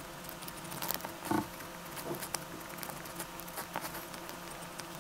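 Pencil scratching on paper in many short, quick strokes, with light ticks as the tip touches down.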